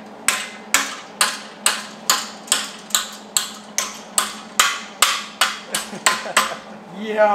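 Hammer blows on steel square tubing clamped in a vise, folding the cut flaps at the tube's end over on itself to cap it. About sixteen steady strikes, roughly two a second, each ringing briefly.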